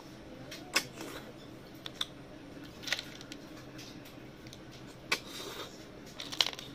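Close-up eating of cooked river snails and rice by hand: about five short, sharp clicks and sucking smacks as the snails are sucked from their shells and chewed, over a steady low hum.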